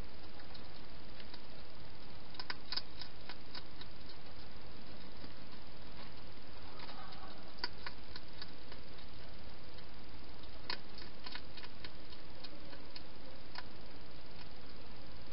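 Wild hedgehog eating from bowls inside a plastic feeding box: scattered bunches of small sharp clicks and crunches from its chewing and nosing at the bowls, over a steady hiss.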